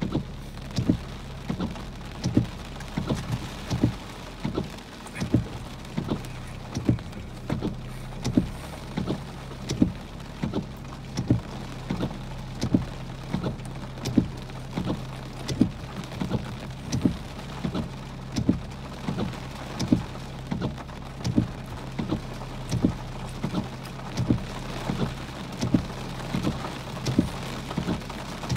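Heavy rain falling on a car, heard from inside the cabin, over a steady low hum. A regular low thump repeats about every 0.7 seconds and stands out as the loudest sound.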